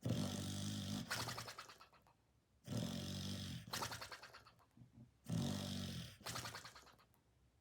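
Dog snoring close to the microphone: three slow breaths about two and a half seconds apart, each a low rattling snore followed by a shorter hissing breath.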